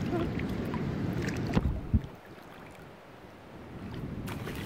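Shallow water sloshing around a wading child, mixed with wind rumbling on the phone's microphone. Two knocks come about a second and a half in, then it goes quieter for a couple of seconds before the water and wind noise pick up again.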